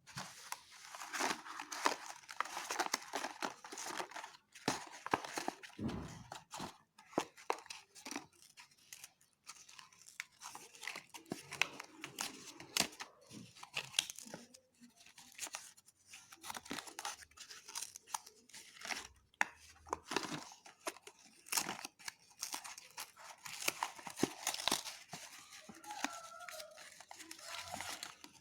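A packet of slate pencils being torn open and unwrapped: irregular tearing and crinkling of the wrapper, with many sharp clicks and rustles.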